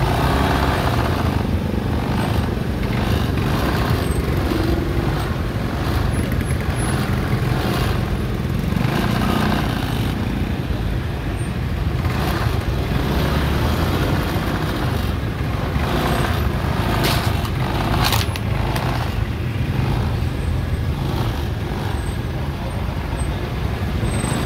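Motor scooter engines and street traffic running steadily, with a low rumble throughout. A couple of sharp knocks come about 17 and 18 seconds in.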